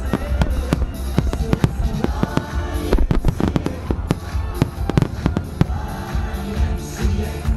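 Starmine fireworks barrage: many aerial shells bursting in a rapid, uneven string of bangs, over music from the show.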